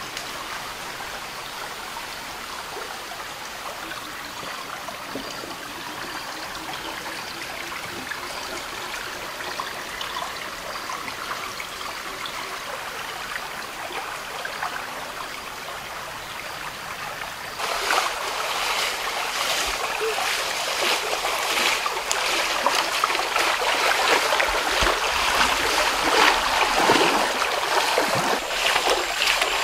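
River water flowing and trickling steadily; about two-thirds of the way through the water sound turns suddenly louder and rougher, with many quick splashy irregularities.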